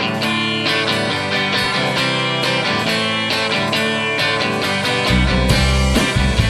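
Rock song intro: guitar strummed in a steady, even rhythm. Deep bass notes come in about five seconds in, and the music gets louder.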